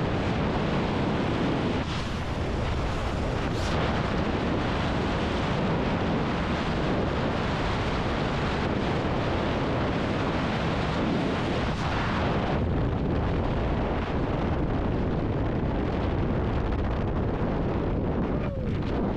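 Strong rushing wind buffeting the camera microphone during a tandem skydive, a steady, loud roar of wind noise.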